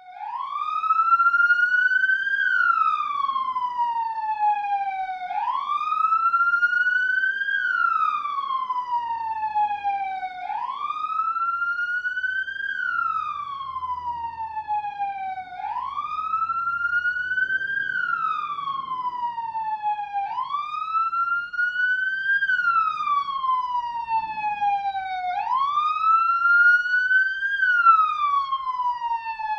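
Police siren sounding its wail: one tone that climbs quickly, levels toward a peak, then falls slowly, repeating about every five seconds.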